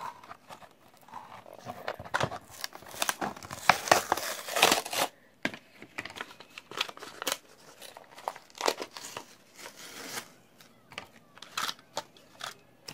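Toy packaging being torn open and crinkled, densest about two to five seconds in, then scattered rustles and clicks as the pack is worked apart.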